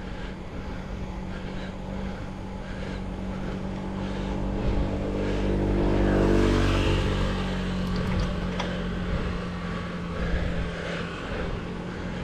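A motor vehicle passes close by: its engine grows louder to a peak about six seconds in, then drops in pitch and fades as it goes past. Under it runs steady wind and road noise on a bike-mounted camera.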